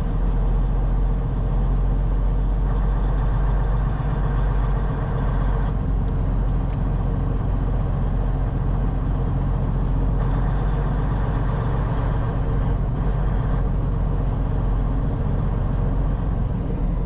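Semi truck's diesel engine running steadily as the truck rolls slowly, a constant low drone with no change in pace.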